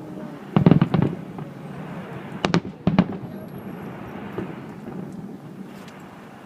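Aerial firework shells bursting in a display. A quick cluster of four or five bangs comes about half a second in, then two single bangs about two and a half and three seconds in, with a low rumble between them.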